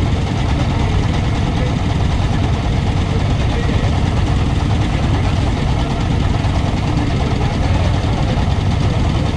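A ship's engine running steadily: a loud, even low drone with no change in speed.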